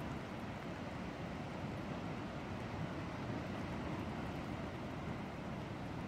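Winter surf breaking among offshore rocks: a steady, low rushing noise of the waves that swells slightly midway.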